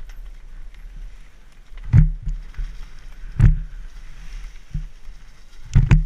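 Mountain bike riding down a leaf-covered forest trail, heard from a helmet camera: steady wind and tyre rumble broken by three sharp thumps as the bike hits bumps, about two seconds in, about three and a half seconds in, and near the end.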